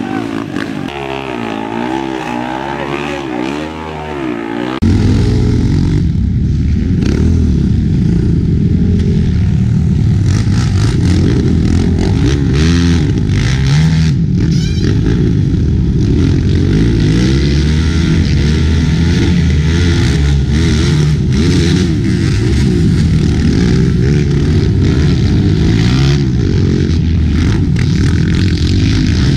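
ATV engines revving up and down as a quad is worked through a deep mud hole. About five seconds in, a sudden change to a louder, steady din of several racing quad engines running hard.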